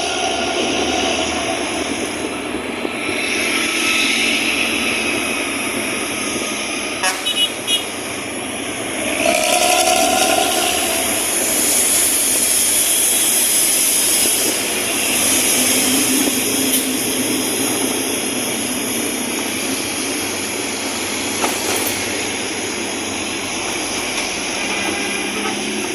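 Intercity bus running with a loud 'snoring' (ngorok) exhaust, amid road and traffic noise. A vehicle horn sounds for about a second and a half about nine seconds in.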